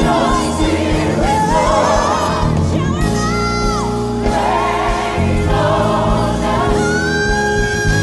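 Live gospel music: a woman's solo voice sings quick melodic runs, then holds one long high note near the end, over a choir and instrumental backing.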